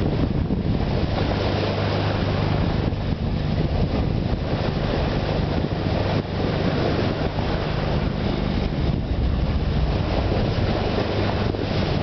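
Wind buffeting the microphone in a steady low rumble, over the continuous rush of sea water past a sailing ship's bow.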